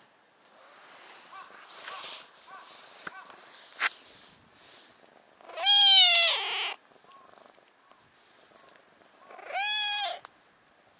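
Orange tabby cat meowing loudly twice, each meow about a second long, the first a little past the middle and the second near the end. Before them, quiet rustling as it rubs against and climbs onto a person's lap.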